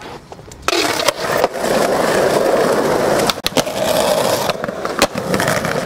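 Skateboard wheels rolling loudly over concrete, starting about a second in, with a few sharp knocks of the board and trucks along the way.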